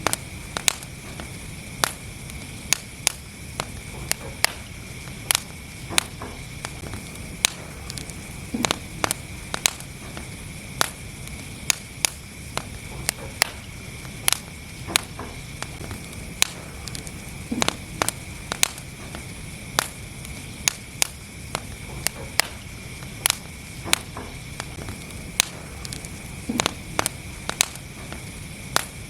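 Wood fire burning in a fireplace: steady low rumble and hiss with frequent sharp crackles and pops, irregular, roughly two a second.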